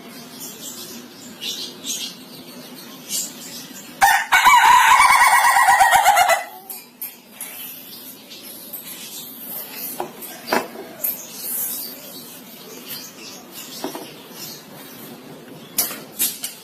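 Ayam ketawa (Indonesian laughing chicken) rooster crowing once, about four seconds in, a loud call of about two and a half seconds broken into quick stuttering notes, the laugh-like crow the breed is kept for.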